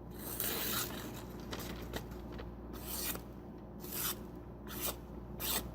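Freshly sharpened S30V steel blade of a Leatherman Charge Ti slicing through newspaper: several short, crisp paper-cutting strokes about a second apart, a test of the new edge.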